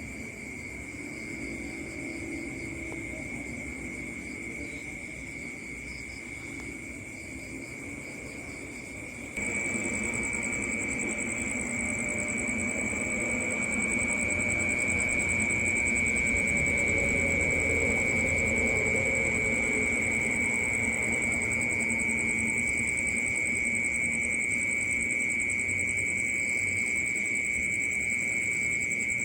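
Night insects, cricket-like, trilling steadily in a continuous high chorus over a low rumbling drone. The whole bed gets abruptly louder about a third of the way in.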